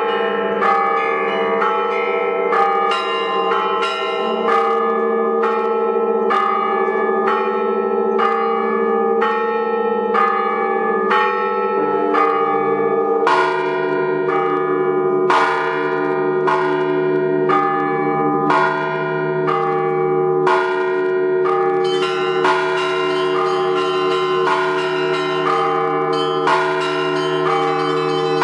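Russian-style peal on a belfry of many bells: small bells struck in a quick, even rhythm of about two strokes a second over the held hum of larger bells. About halfway through a deeper bell comes in underneath.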